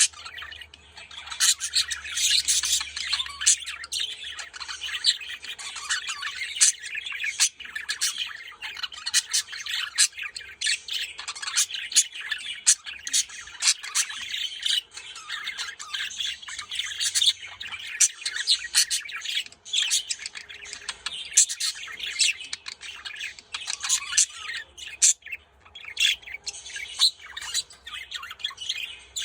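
Budgerigars chattering and warbling without a break, a dense run of fast twittering with many short, sharp chirps mixed in.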